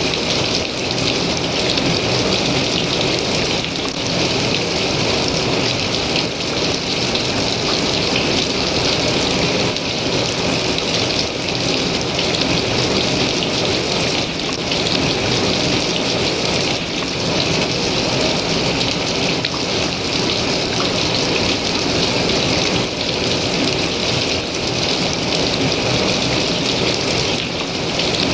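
Hailstones falling and striking surfaces: countless small ticks over a dense, steady hiss.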